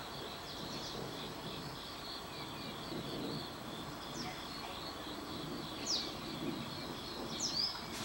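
Black-collared starling giving short, sharp, falling whistles: one about six seconds in and two close together near the end, over a steady pulsing insect chorus.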